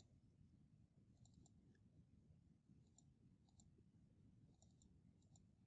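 Near silence, with faint computer mouse clicks every second or so, some of them in quick pairs.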